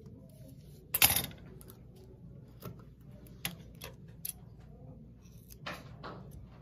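Scissors snipping small pieces off a strip of double-sided tape: a series of sharp snips and clicks, the loudest about a second in, another near the end.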